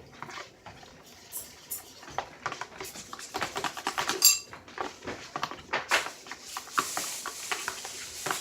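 A spoon stirring and scraping glue in a bowl while making slime, with quick clicks and clinks of the utensil against the bowl that grow busier partway through. A brief high squeak sounds about four seconds in.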